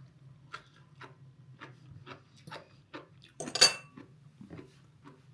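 Close-up eating sounds: crunchy chewing of pickled cabbage in short strokes about two to three a second, with a louder sharp sound about three and a half seconds in and a low steady hum underneath.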